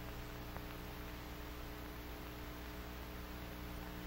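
Faint steady electrical hum with hiss, the background noise of an old film soundtrack.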